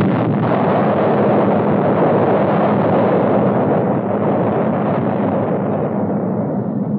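Long, steady roar of a large explosion, its higher part dying away over the last couple of seconds.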